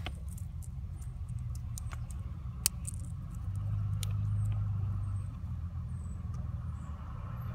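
Small clicks and scrabbling as fingers handle a pulled mini blade fuse and a paper towel at the fuse box, with one sharper click a little under three seconds in, over a low steady rumble.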